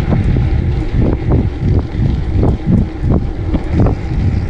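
Heavy wind buffeting on the microphone while riding a gravel bike along a dirt track, with an uneven low rumble from the ride.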